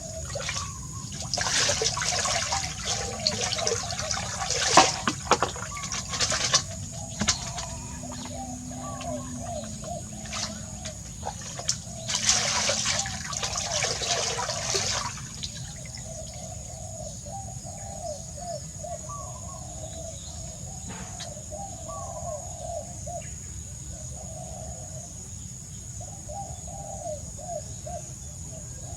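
Water poured and splashing during a monkey's bath, in two spells: roughly from two to six seconds in and again from about twelve to fifteen seconds in. Birds call in the background, over a steady high whine.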